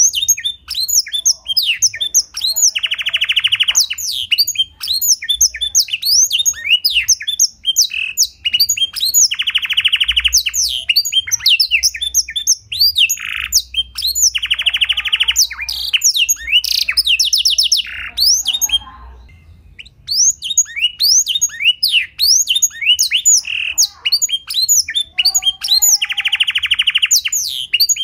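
Domestic canary singing a fast, continuous song of high chirps and sweeps in black-throated canary style, broken by several long buzzy trills and one short pause about two-thirds through.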